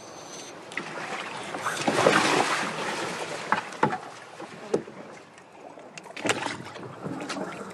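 Water splashing and sloshing against a small inflatable boat, swelling into a louder rush of splashing about two seconds in, with a few short knocks of gear against the boat.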